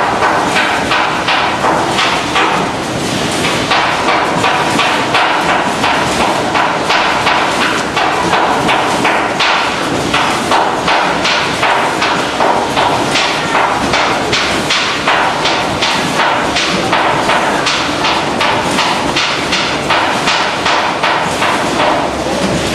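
Packaging-line machinery clattering with rapid, irregular knocks, several a second, over a steady machine hum.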